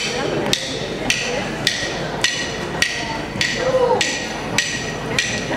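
Dunun player striking a steady pulse with a stick to start a West African drum piece: a sharp, ringing strike about twice a second, evenly spaced.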